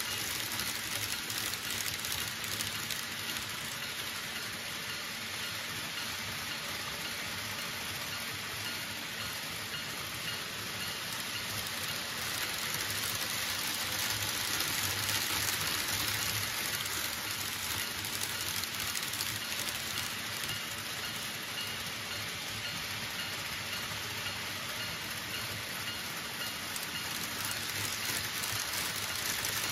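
Model trains running on a home layout: a steady rushing whir of small wheels on the rails and the motors, swelling and easing slightly as trains pass.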